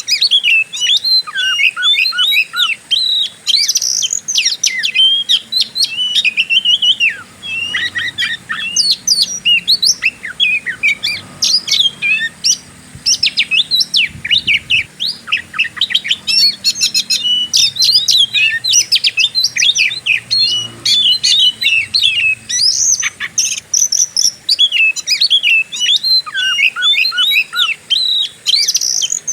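Oriental magpie-robin (kacer) singing a fast, dense, varied song of sharp whistles, trills and chirps, in the aggressive 'fighter' style that keepers play as a lure to set other kacer singing. The song pauses briefly a few times.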